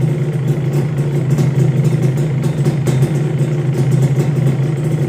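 Suzuki Satria 120 single-cylinder two-stroke engine idling steadily, freshly rebuilt with a new piston and running smooth. A faint click about three seconds in.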